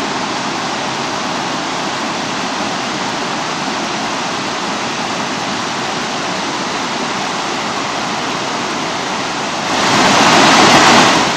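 Waterfall on a mountain stream, water cascading down a sandstone step in a steady rush that turns louder near the end.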